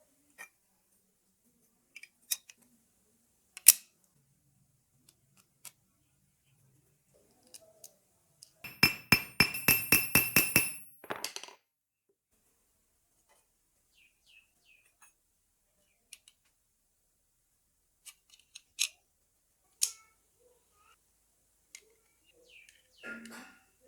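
Small metal parts of a padlock clicking and tapping as they are handled. About nine seconds in comes a fast, even run of about a dozen ringing metallic clicks lasting roughly two seconds.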